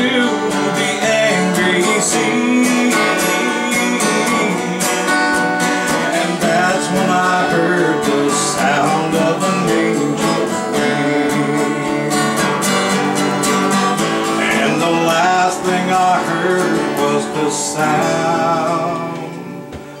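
Two acoustic guitars playing together, strummed and picked, with the level dipping briefly near the end.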